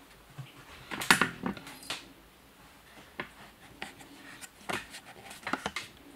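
A British Shorthair kitten playing on a wooden surface: scattered light taps, scrapes and clicks of its paws and claws, loudest in a quick cluster about a second in.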